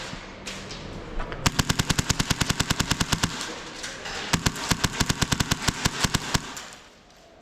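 Airsoft guns firing full-auto: two bursts of rapid, evenly spaced shots, each about two seconds long, with a few single shots before them.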